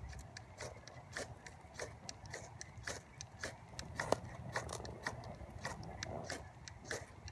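Gerber firesteel: the striker scraped down the ferro rod again and again, short sharp scrapes about two to three a second, striking sparks into a pine-needle tinder nest to get it to light.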